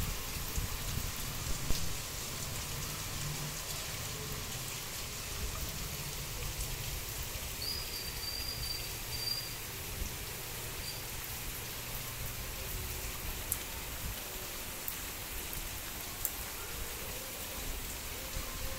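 Heavy rain falling steadily, an even hiss with a few sharper drop ticks here and there.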